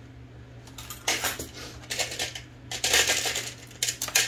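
Metal parts of an Olivetti Linea 98 typewriter carriage being handled and shifted, giving several short bursts of metallic clinking and scraping: about a second in, at two seconds, around three seconds and again near the end. A steady low hum runs underneath.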